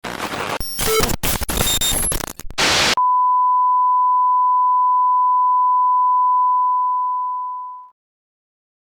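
Loud television static with glitchy dropouts for about three seconds, then cut off sharply by a single steady high beep tone. The tone holds and then fades out about five seconds later. It is the off-air static and test tone of a broadcast station signing off.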